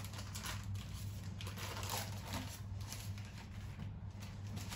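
Faint rustling and crinkling of baking paper as hands roll a sheet of puff pastry into a tight log, over a low steady hum.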